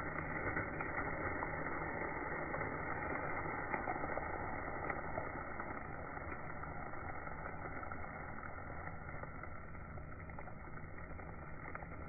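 Slowed-down sound of a car tire rolling slowly over asphalt: a dull, muffled rumbling hiss with faint scattered crackles, easing off a little toward the end.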